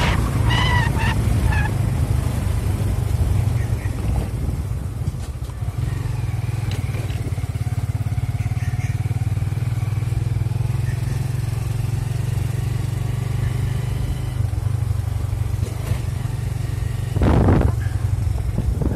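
Motorcycle engine running steadily as it rides along a dirt forest track, a constant low hum. A few short high tones sound in the first couple of seconds, and a brief louder burst of noise comes near the end.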